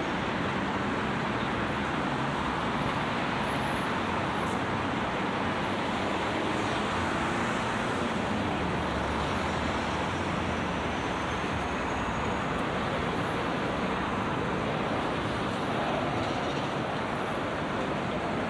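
Steady road traffic noise from a busy multi-lane city road, cars and buses passing in a continuous wash of engine and tyre noise.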